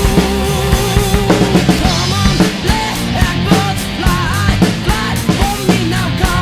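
Rock band playing with drums and bass guitar. A held, wavering lead note gives way about a second and a half in to a line of short bending notes.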